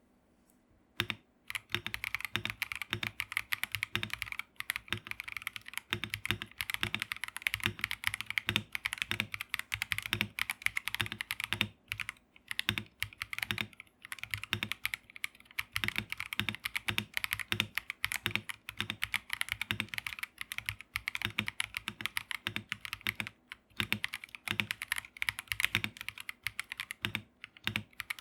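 Fast continuous typing on an Akko PC75B V2 mechanical keyboard, in stock form with Akko Crystal Wine Red switches: a dense stream of key clacks with deeper knocks about once a second. The typing begins about a second in.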